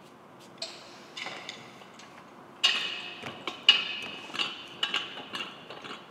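Rubber blasting hose on a shot blaster being loosened at its hose clip with a flat-blade screwdriver and then twisted and pulled off its metal fitting: scattered small clicks at first, then from about two and a half seconds in a busier run of scrapes, ticks and knocks.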